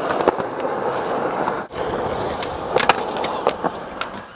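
Skateboard wheels rolling on rough concrete, a steady grinding noise that cuts out briefly just before two seconds in, with several sharp clacks of the board in the second half, the loudest about three seconds in. The rider loses control and the board clatters away from his feet.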